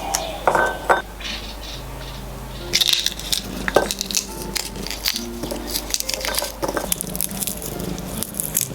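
Light clicks, clinks and crackling from things being handled, over soft background music of held notes.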